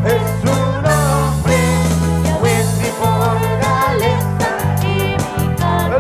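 Live worship band playing a praise song: drum kit keeping a steady beat, electric guitar and a low bass line, with a man singing.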